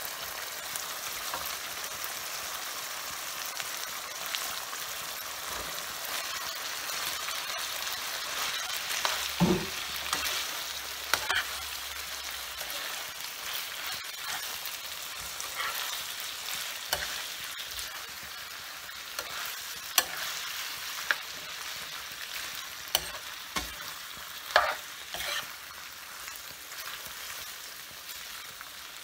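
Meat sauce sizzling in a frying pan as cooked bowtie pasta is stirred and tossed through it with a metal spoon, with scattered sharp scrapes and knocks of the utensil against the pan.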